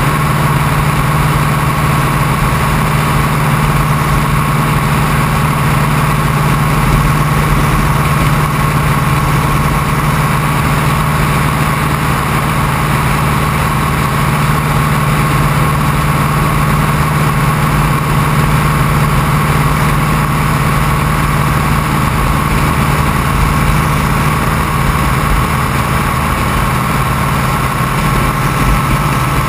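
Open-cockpit biplane's engine and propeller running steadily at climb power through lift-off and the climb-out, with wind rushing over the outside-mounted camera.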